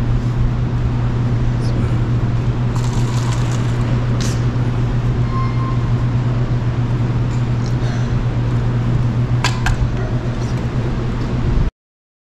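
Steady low hum over a constant background hiss, with a few light clicks, cutting off abruptly near the end.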